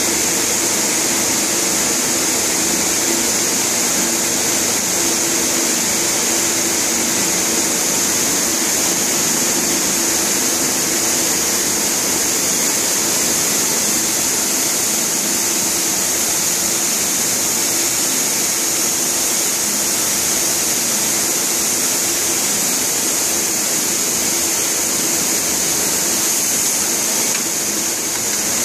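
Jakob Müller RAM 500 tape measuring and rolling machine running steadily while it winds narrow woven tape onto a roll, mixed with the mill's machine noise. The noise is continuous, with a constant high hiss over a low hum.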